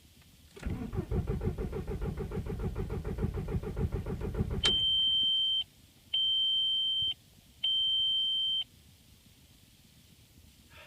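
Volkswagen's starter cranking the engine in an even rhythm for about four seconds without it firing, then stopping abruptly; the crank-no-start was later traced to a failed ECU. Three long, even dashboard warning beeps follow.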